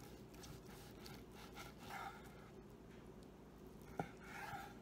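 Knife slicing through grilled flank steak on a wooden cutting board: soft, faint cutting sounds and one sharp tap of the blade on the board about four seconds in, over a low steady hum. Soft breathing is heard twice.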